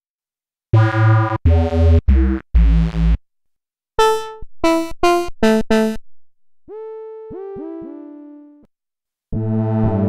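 Behringer Vintage software synthesizer playing preset demos: a few short, bass-heavy chords, then a quick run of staccato notes, then a series of notes that each swoop down in pitch as they start. Near the end a new preset begins with a sustained, buzzy chord.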